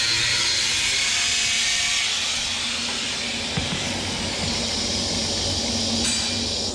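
Power tool cutting a hole into a stainless-steel muffler, a steady high rushing noise.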